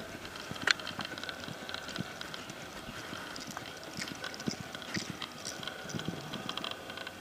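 Hoofbeats of an American Quarter Horse gelding loping on soft arena dirt: irregular dull thuds, with a sharp click a little under a second in.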